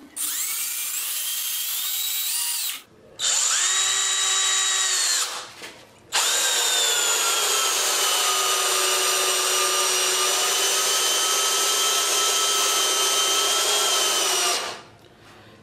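Brushed motor of a 20 V Tonfon (Xiaomi) cordless drill/driver whining as it drives a long 130 mm hex-head screw into wood without a pilot hole. It runs in three bursts, the first speeding up as it starts and the last, longest one dipping a little in pitch under load. The screw goes in without stalling the motor.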